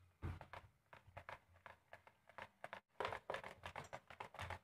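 Wire whisk stirring cake batter in a plastic bowl: faint, quick, irregular clicks and scrapes of the wires against the bowl, several a second, with a brief pause near the middle.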